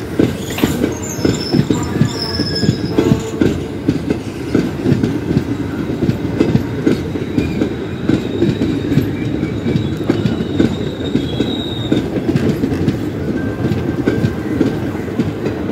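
Express train's passenger coaches rolling past on the track: a steady rumble with dense clattering of wheels over the rails. Faint high-pitched wheel squeal comes in near the start and again past the middle.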